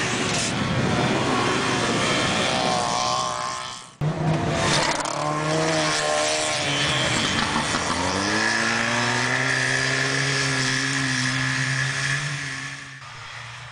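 Trabant two-cylinder two-stroke engines running hard at high revs as the cars race on snow. The sound breaks off abruptly about four seconds in. In the second half one engine's pitch climbs as it accelerates, holds steady, then falls away near the end.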